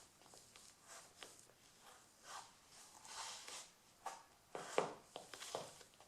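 Stiletto heels of black leather court shoes on a parquet floor: irregular sharp heel clicks with soft scuffing and rustling between them, the sharpest click nearly five seconds in.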